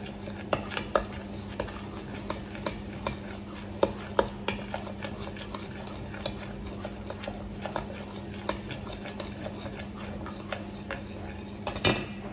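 A mixing spoon stirring onion and garlic in a stainless steel saucepan, knocking and scraping against the pan at irregular intervals. A sizzle of the onion and garlic frying in hot oil lies underneath.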